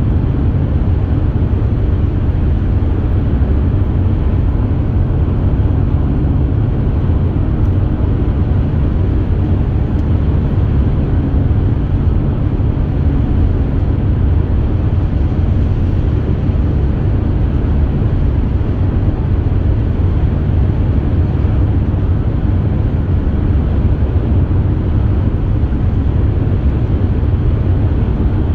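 Steady low road and engine noise inside the cabin of a car driving at highway speed.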